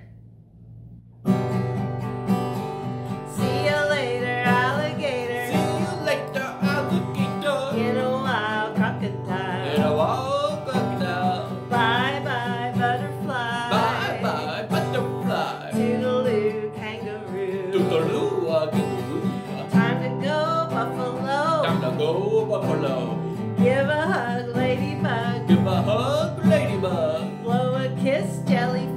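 Acoustic guitar strummed in a steady rhythm, with a woman singing a children's goodbye song over it. It begins after a brief silence about a second in.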